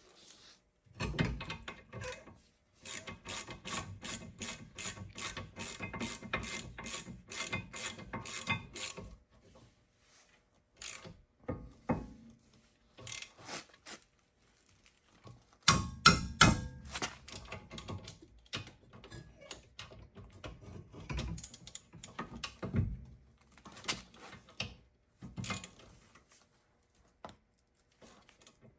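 Hand ratchet wrench clicking as it is worked back and forth, a steady run of about three to four clicks a second for several seconds. Scattered ratchet clicks and metallic knocks follow, with a louder clatter about halfway through.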